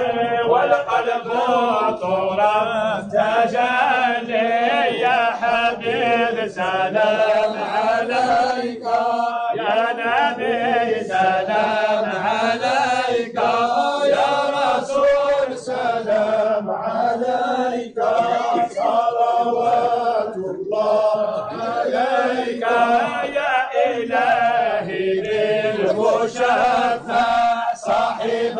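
A large group of men chanting together in unison, a steady repeated melodic line without pause: Sufi devotional chanting (dhikr) of the Alawiyya order.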